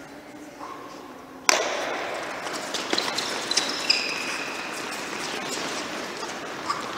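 A group of children sprinting across an indoor tennis court: many quick footsteps on the hard court surface with short high sneaker squeaks, starting suddenly about a second and a half in.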